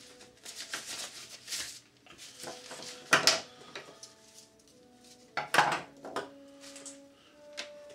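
Handling noise as a silk parachute's lines are untangled on a cluttered work table: rustling and small clatters, loudest about three and about five and a half seconds in. Faint steady tones hum underneath.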